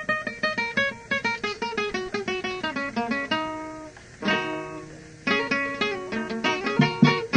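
Huayno music from a cassette recording: an acoustic guitar starts a new piece with quick picked melodic runs. About three seconds in it holds a note, then strums a chord, and the picked runs pick up again.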